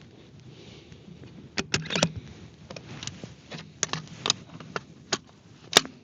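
Scattered small clicks and knocks of handling a bolt-action rifle and gear while settling in to shoot, about seven in all, the sharpest one near the end.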